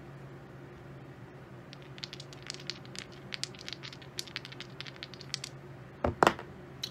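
A pair of dice rattled in a cupped hand, a quick run of small clicks, then thrown down a craps table, landing with a few louder knocks about six seconds in.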